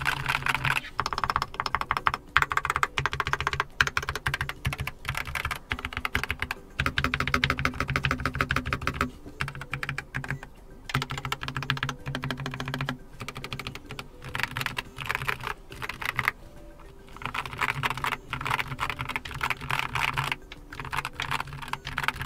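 Typing on a Keychron K4 HE keyboard with lubricated magnetic Hall-effect linear switches: fast runs of keystroke clacks in bursts, broken by short pauses, on a hollow-sounding desk.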